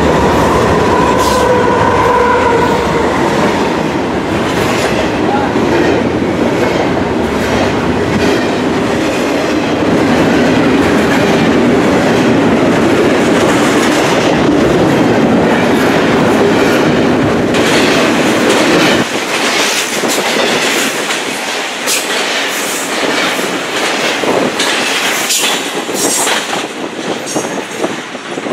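BNSF freight train passing close at speed: the diesel locomotives go by with the tail of a horn blast that dies out in the first few seconds, then double-stack container cars roll past. The deep engine rumble drops away about two-thirds of the way through, leaving the rapid clicking and clatter of wheels over rail joints.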